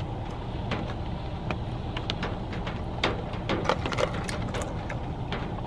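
Scattered light clicks and rustles of food and takeout containers being handled, over a steady low hum.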